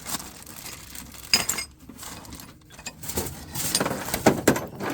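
Small metal fittings clinking and jangling against each other as they are handled, with scattered sharp knocks that come more often in the second half.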